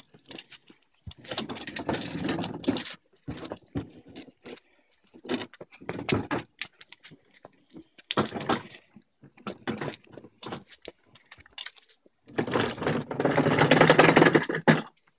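Plastic wheels of a ride-on toy car rolling and rattling over paving slabs in several bursts of a second or two, with the longest and loudest stretch near the end.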